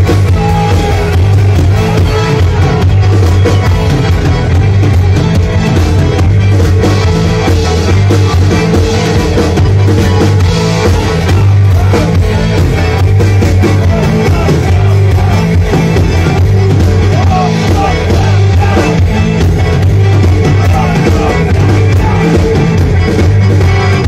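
Live folk-rock band playing an instrumental passage: piano accordion, electric guitar and bass guitar over a drum kit, loud and steady.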